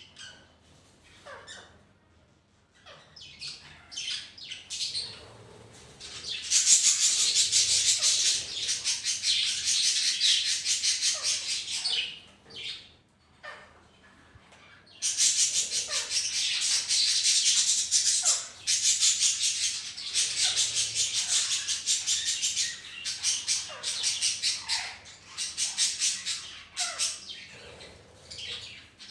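Budgerigar flock chattering: scattered short calls, then two long stretches of loud, dense high-pitched warbling from many birds at once, broken by a few lower squawks.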